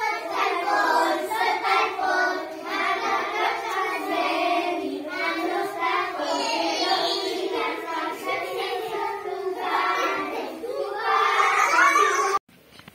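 A group of young children singing a song together, their voices overlapping, cutting off suddenly about twelve seconds in.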